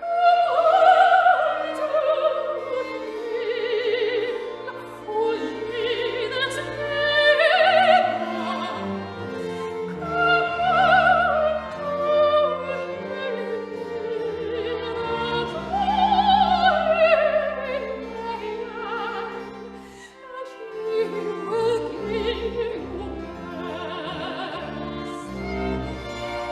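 Operatic singing over an orchestral accompaniment with bowed strings. The voice holds long notes with a wide vibrato and swells louder and softer from phrase to phrase.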